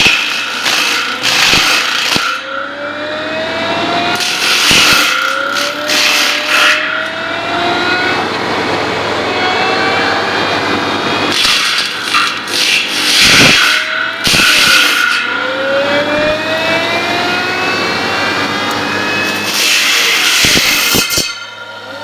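An engine revving up again and again, its pitch rising each time over a second or two, with short loud bursts of noise over it.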